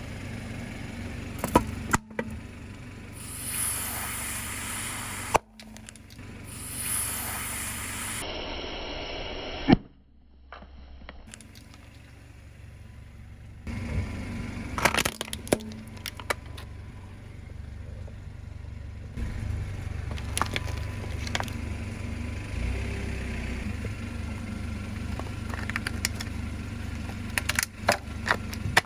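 Car tyre rolling slowly over objects and crushing them over the low run of the car's engine: a soda can with a balloon on it, then a plastic toy car pressed onto a bed of nails, with sharp cracks, crunches and scrapes and one loud pop about ten seconds in.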